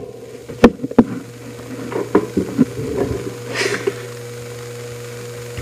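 Close handling noise of a phone and its USB cable being worked by hand: scattered clicks and knocks, with a brief rustle a little past the middle. A steady low hum comes in about a second in.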